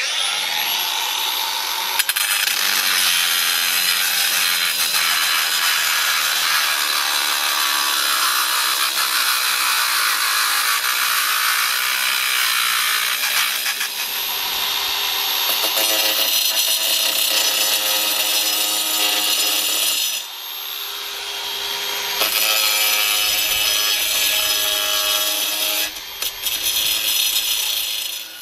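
Handheld electric power tool running almost without pause while working wood, its motor pitch shifting as it cuts. It eases off briefly a few times, with a lull of about two seconds about two-thirds of the way through.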